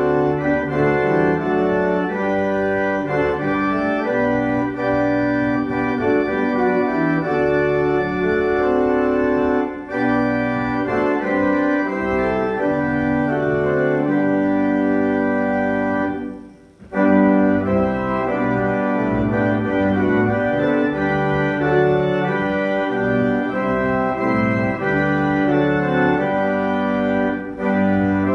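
Church organ playing a hymn tune in sustained chords, with a brief pause between phrases about two-thirds of the way through.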